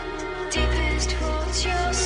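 Background music: slow, sustained chords with a melody line, and a deep bass note coming in about half a second in.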